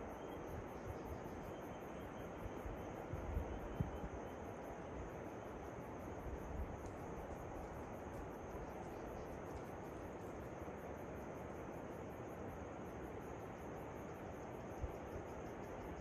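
Steady rush of a waterfall, with insects chirping in rapid, even, high-pitched pulses over a thin steady high buzz. A couple of brief low thumps come about three and four seconds in.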